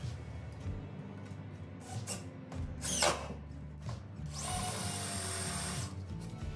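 Cordless drill-driver running as it drives a screw into a wooden boat frame: a brief whirr about three seconds in, then a steady run of about a second and a half near the end.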